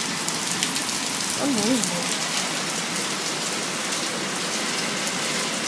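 Heavy thunderstorm rain falling steadily, an even hiss of rain on surfaces.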